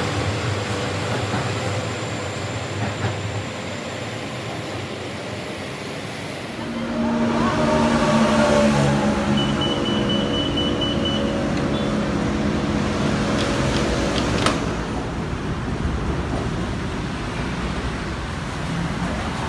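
BTS Skytrain electric train with a steady running hum, mixed with road traffic noise. From about seven seconds in it grows louder with a steady droning whine. Around ten seconds in comes a short run of rapid high beeps, and a single sharp click follows a few seconds later.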